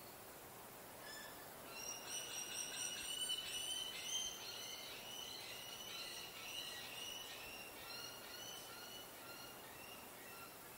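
Birds chirping: a fast run of short, high chirps that swells about two seconds in and thins out toward the end, over a faint steady hiss.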